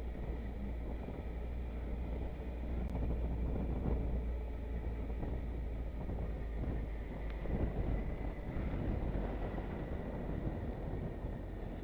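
Wind rushing over the microphone with the low drone of a motorcycle's engine and road noise while riding at steady speed.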